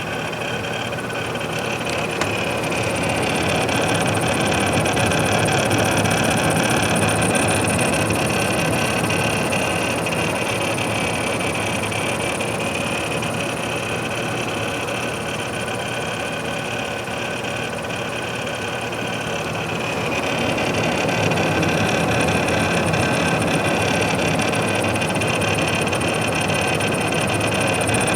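Defective Corsair H100 liquid CPU cooler running, its pump rattling and one of its radiator fans grinding: a steady mechanical rattle and whir with a thin high whine. The rattle points to a faulty pump and the grind to a failing fan bearing.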